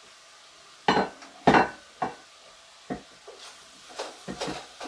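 Kitchen utensils against a skillet: a glass pan lid clanks twice, loudest about a second and a half in. A few single knocks follow, then a wooden spoon stirs and scrapes food in the pan near the end, in a run of short knocks.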